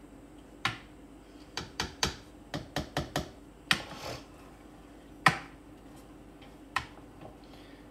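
A metal spoon knocking and scraping against a cooking pan as food is stirred: about a dozen sharp, irregular clicks and knocks, with a short scrape about four seconds in.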